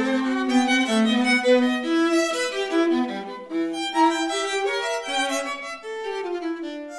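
A violin and a viola playing a bowed duet, with quick-moving notes in both parts.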